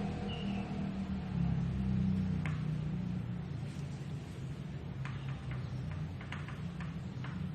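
A steady low machine hum, with a few faint clicks in the second half.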